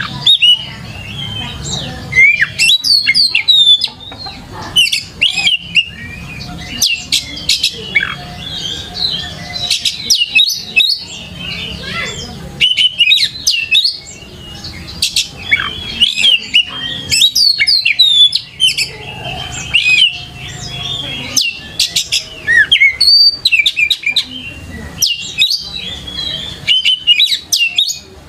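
Oriental magpie-robin (kacer) in full song: loud, rapid phrases of varied sweeping whistles and sharp notes with short gaps between them.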